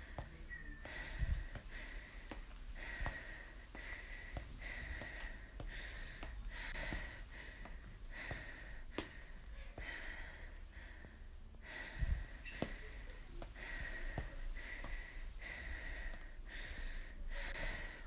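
A person breathing in short, noisy breaths, about three every two seconds. A few light knocks are scattered through, with two low thumps, one about a second in and one about twelve seconds in.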